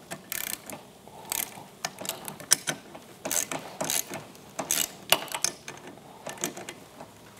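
Ratchet wrench clicking in short bursts, a stroke about every second, as the mounting bolts of a snowmobile's aluminum handlebar riser are tightened.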